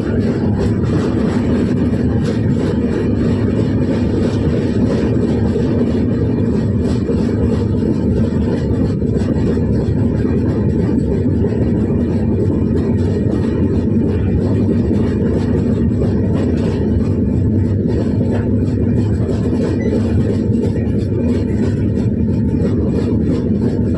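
Train running steadily, a continuous low rumble with faint fine rattling over it.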